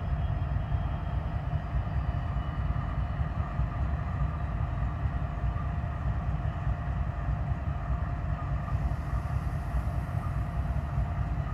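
Freight cars rolling slowly through a rail yard: a steady low rumble of steel wheels on rail, with a thin steady tone above it.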